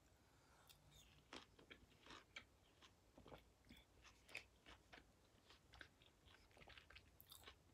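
Faint chewing of juicy star fruit: soft, irregular wet crunches and mouth clicks.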